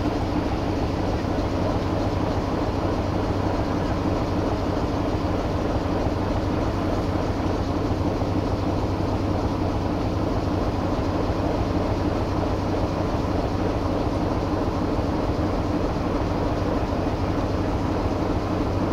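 Diesel-electric shunting locomotive running steadily while a long string of freight wagons rolls slowly along the track.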